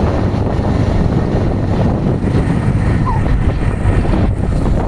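Wind buffeting the microphone on a moving vehicle, a loud, steady rumble mixed with road and engine noise.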